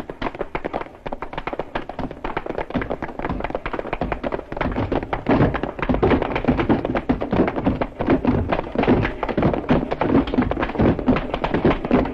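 A group of people running in step on a wooden gym floor: many rapid, uneven footfalls overlapping, growing louder about five seconds in.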